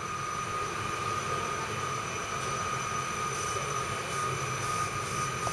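Modern low-floor electric tram moving slowly past close by: a low rumble with a steady high electrical whine from its traction equipment.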